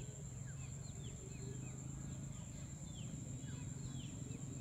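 Many birds chirping together, short falling calls several times a second, over a steady high-pitched insect drone and a low steady hum.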